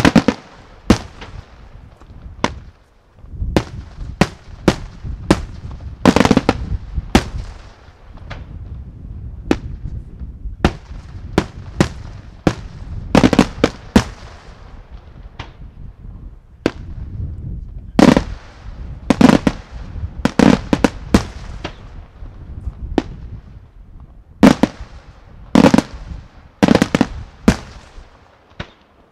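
Senatore Fireworks daytime aerial shells bursting overhead: a long, irregular run of sharp, loud bangs, often in quick clusters, over a continuous echoing rumble. The bangs thin out near the end.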